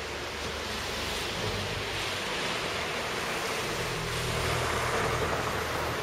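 Steady rushing street noise of passing traffic, swelling about four to five seconds in as a vehicle goes by.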